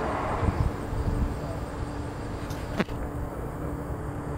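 Outdoor background noise: a low rumble that swells briefly about half a second in under a faint steady hum, and one sharp click near three seconds in.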